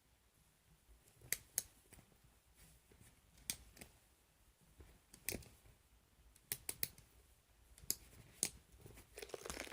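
Clockwork of a 1960s Lakeside Toys wind-up doll being wound by hand: faint separate clicks from the winding key and ratchet, about one every second or so, with a quick run of three or four a little past the middle.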